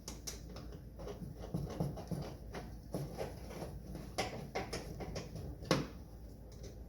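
Irregular small clicks and knocks of screws and a screwdriver being worked into a pickup truck's door panel, with one louder knock near the end.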